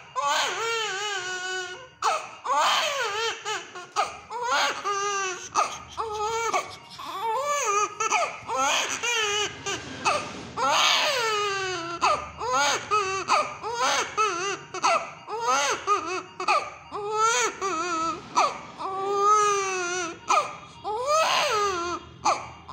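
Infant with a high-grade fever crying in repeated wails, each up to about a second long, the pitch rising and falling within each, with short catches of breath between.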